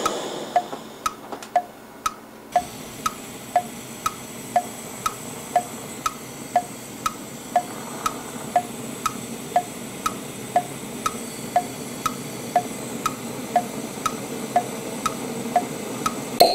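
Even clock-like ticking, about two ticks a second, over the steady hiss of gas flames from a butane canister stove and a gas torch heating a cast-iron Dutch oven; the hiss grows brighter about two and a half seconds in.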